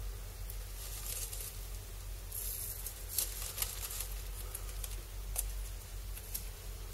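Clear plastic packet crinkling and rustling as it is opened and cotton lace is pulled out of it, in several short spells with a few sharp crackles. A steady low hum lies underneath.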